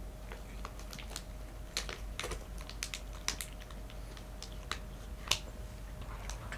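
A kitten eating treats from a ceramic bowl: irregular crisp crunches and clicks as it chews and noses the food around the bowl.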